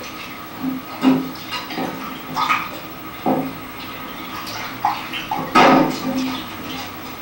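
Hands splashing and sloshing water in tin buckets, in uneven splashes and knocks, the loudest about two-thirds of the way through.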